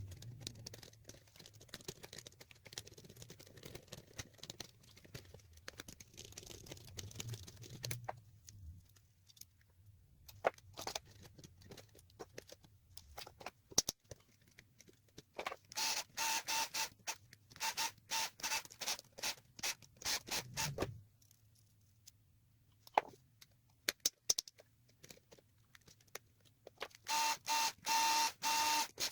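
Hand work on an old Royal No. 5 manual typewriter being restored: scattered small clicks and taps, then two runs of quick back-and-forth scraping or scrubbing strokes with a squeaky edge, the second run near the end.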